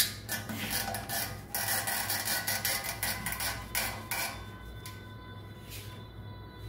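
Scraping and clicking of plastic toilet-seat hinge bases and a screwdriver being handled and adjusted on a ceramic toilet bowl; the handling noise goes quieter after about four seconds.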